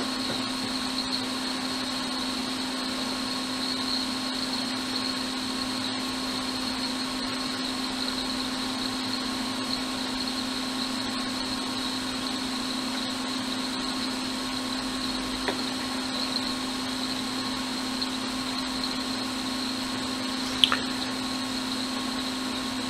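Steady whirring hum of a small electric fan or blower motor at an electronics repair bench, with a few faint ticks and a small click near the end.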